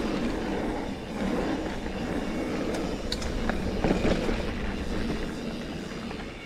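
Mountain bike riding along a dirt singletrack: steady tyre rumble and wind on the microphone, with a few sharp clicks and rattles from the bike.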